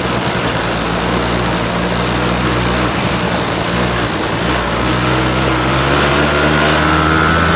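Quad bike engine running steadily under way across sand, with wind and ride noise over it. A higher whine joins near the end.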